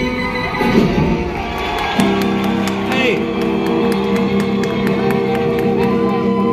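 Accordion playing a sustained chord, starting about two seconds in, as a live song intro. Crowd cheering and shouting can be heard under it in a large hall.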